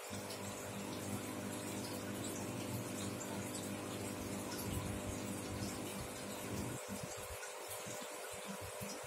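Aquarium filter pump running steadily, with water rushing from the outlet pipe into the tank. A deeper rumble under it drops away about seven seconds in.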